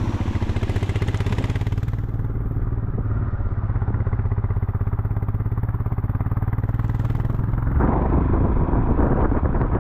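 Motor vehicle engine running steadily on the move, with a fast, even pulsing beat, growing louder and rougher about eight seconds in.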